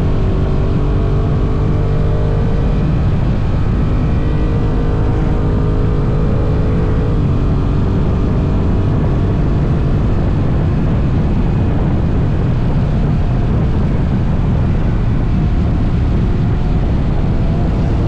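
Honda NT1100 motorcycle's parallel-twin engine running at highway speed under heavy wind rush on the bike-mounted camera's microphone. The engine note steps down once, about seven seconds in.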